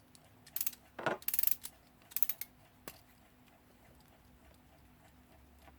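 A handful of short metallic clicks and scrapes from small hand tools working on a mechanical alarm clock movement, clustered in the first three seconds, then only faint background.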